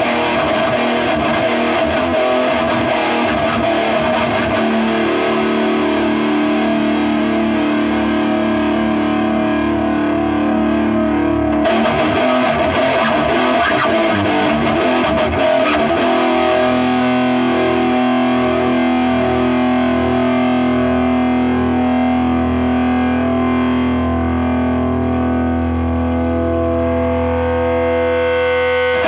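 Distorted electric guitar played through a Crate Blue Voodoo cabinet newly loaded with two Eminence speakers, the notes held long. The chord changes about twelve seconds in and again about four seconds later.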